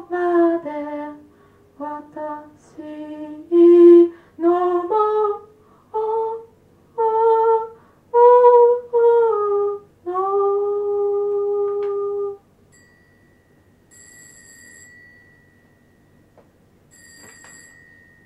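Lo-fi live recording of a slow, wordless melody of short held notes, ending in one long held note about ten seconds in. After that, only a faint, steady, high-pitched whine remains.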